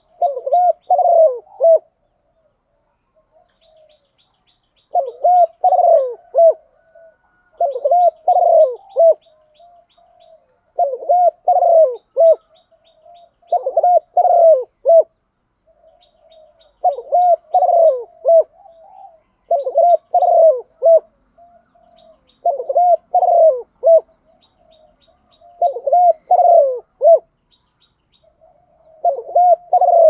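Spotted dove cooing: repeated phrases of three or four coos, about one phrase every two to three seconds, with a longer pause a couple of seconds in.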